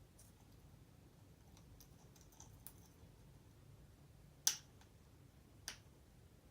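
Scattered faint clicks, then two sharp clicks, the louder about four and a half seconds in and another just over a second later.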